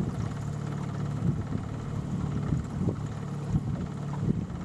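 Low, steady hum of a boat motor, with wind buffeting the microphone in gusts.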